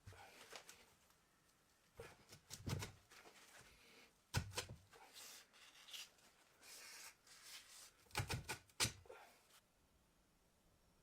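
Handling noise of small hard objects: scattered clicks and knocks, with stretches of rubbing or scraping between them. The sharpest knocks come a little before halfway and again about three quarters through.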